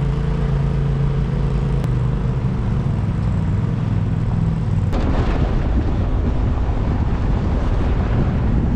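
Jeep engine running steadily at low speed. About five seconds in, the sound changes abruptly to a rougher low rumble with wind-like hiss.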